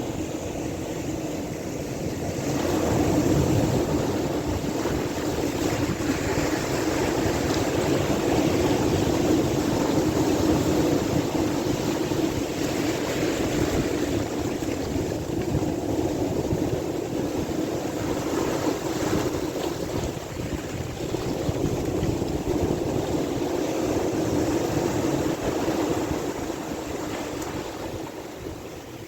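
Sea waves washing, with wind buffeting the microphone, the noise swelling and easing slowly.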